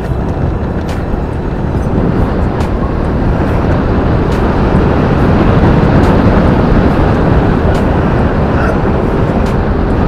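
Motorcycle being ridden: wind rushing over the microphone with the engine running underneath, growing a little louder midway, and scattered light clicks over the rough, potholed road.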